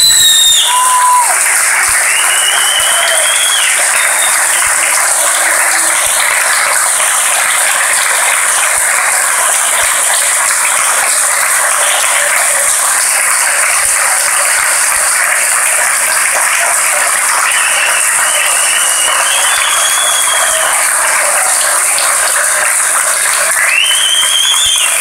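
Audience applause, steady and sustained, with a few high whistles heard over it.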